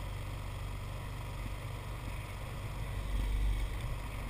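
ATV rolling along a paved road behind a dog team, a steady low rumble that swells slightly about three seconds in.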